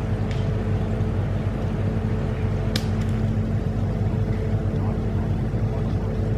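A steady low mechanical hum runs underneath. A single sharp air rifle shot cracks a little under three seconds in, followed by a faint click.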